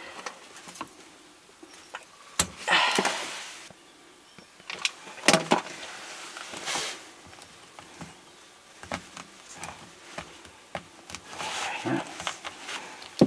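Hands handling clear plastic water tubing and a black plastic barbed fitting: scattered clicks and knocks with short scraping, rustling bursts as the tubing is worked onto the fitting near the end.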